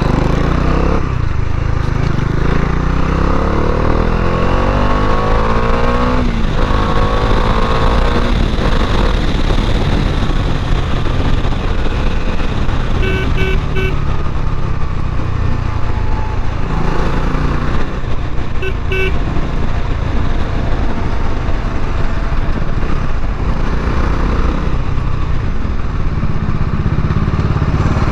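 Bajaj Dominar 400's single-cylinder engine on its stock exhaust, running under way: it rises in pitch as the bike accelerates, drops at a gear change, then settles to a cruise. Short horn beeps sound twice around the middle.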